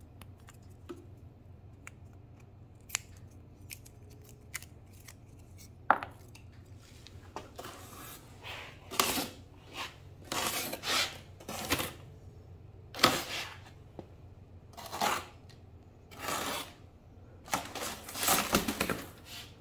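Knife cutting through packing tape and cardboard on a shipping box. A few sharp clicks come first, then repeated short scraping strokes from about a third of the way in, busiest near the end.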